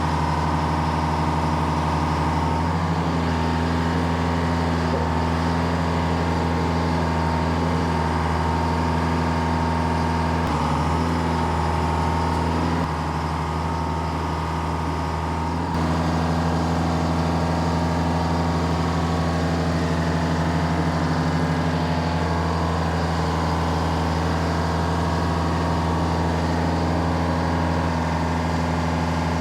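Two-stroke Detroit Diesel engine of an Insley excavator running steadily, freshly started after sitting unused for four months. It runs a little quieter for about three seconds near the middle.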